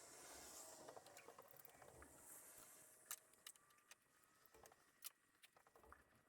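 Near silence with faint rustling and a few light, sharp clicks, the clearest about three and five seconds in.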